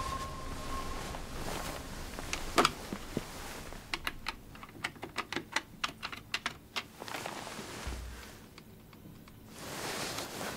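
Buttons on a corded desk telephone's keypad being pressed to dial a number: a quick, irregular run of short plastic clicks, with one louder click a couple of seconds before them.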